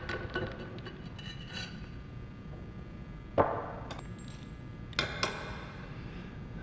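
Metal parts of a deep-drawing die set and the drawn silver tube clinking and knocking as they are handled on the hydraulic press, a few separate ringing knocks, the sharpest about three and a half seconds in.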